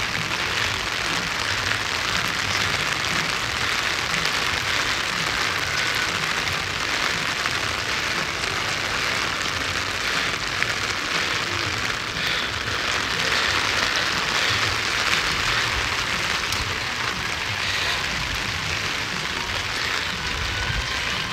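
Rain falling steadily: an even, unbroken hiss of drops.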